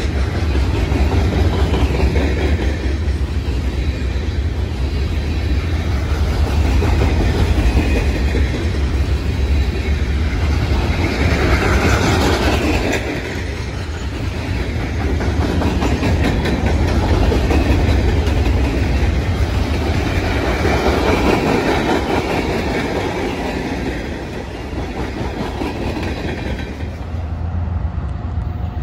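Freight train cars rolling past close by: a steady loud rumble and clatter of steel wheels on the rails.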